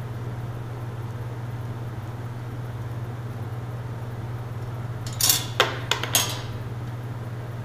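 Crank-slider teaching rig being taken apart by hand: a short run of clicks and scrapes from the transparent coupler and its fastener coming off, about five seconds in. A steady low hum runs underneath.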